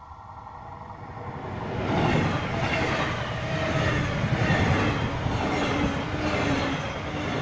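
DB Regio double-deck regional express train with a class 146 electric locomotive approaching and passing close at speed. Its wheels rolling on the rails build up over the first two seconds, then stay loud as the coaches go by.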